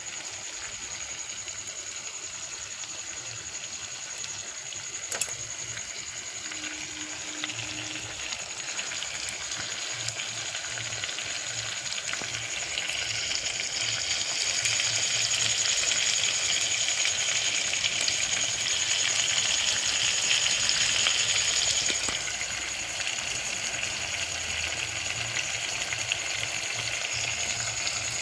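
Food sizzling in hot oil in a pan, a steady hiss that grows louder about halfway through and eases off again near the end, with an occasional click.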